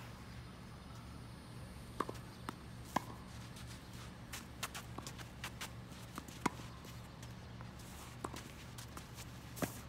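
Tennis ball hit back and forth during a rally on a green clay court: sharp racket-string pops and softer ball bounces, about ten in all, with the loudest hits about 2, 3 and 6.5 seconds in. Shoe scuffs and a steady low hum lie underneath.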